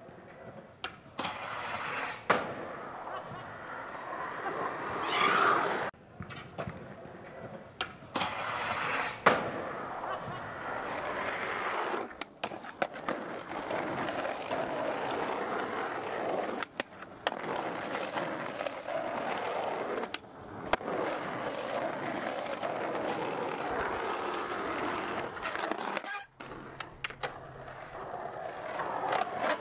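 Skateboard wheels rolling on rough asphalt and concrete, with sharp clacks of the board snapping and landing; the loudest clack comes about nine seconds in. The rolling breaks off suddenly several times as one run ends and another begins.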